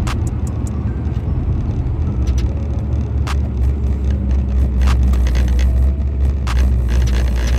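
Car engine and exhaust droning low and steady, heard from inside the cabin while driving, growing fuller about halfway through. An occasional sharp tick or rattle sounds over the drone.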